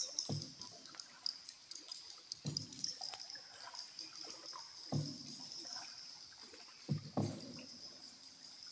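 Wooden paddle strokes of a paddled tour boat in water: a soft low splash and slosh about every two to two and a half seconds, four times, over a steady high-pitched chatter in the cave.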